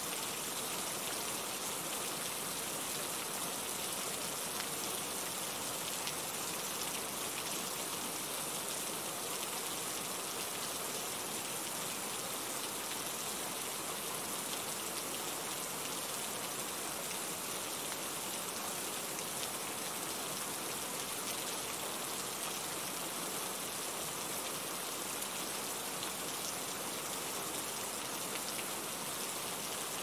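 Steady rain falling: a dense, even hiss that holds at one level throughout, with no thunder.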